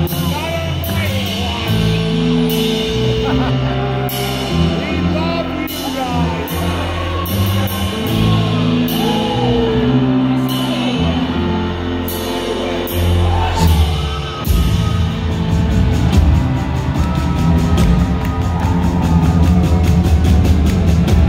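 Rock band playing live: electric guitar, bass and drums under a sung lead vocal, with the reverberation of a large hall. About fourteen seconds in, the drumming turns to rapid cymbal strokes and the music gets a little louder.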